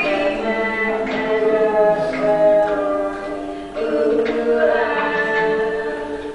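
Voices singing together in harmony, with long held notes that change every half second or so and no clear beat, played from the projected film's soundtrack.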